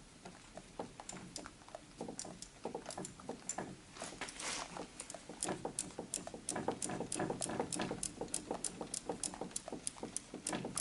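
Small ratchet wrench clicking as it turns a bolt: scattered clicks and knocks at first, then from about halfway a steady run of ratcheting clicks, three to four a second.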